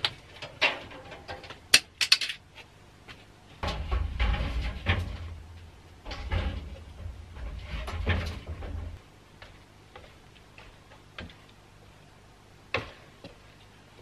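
Knocking and rattling of an old clothes dryer's sheet-metal frame as it is carried out by hand, with a stretch of heavy, low thumping and rumbling from about four to nine seconds in, then a few faint knocks and one sharp click near the end.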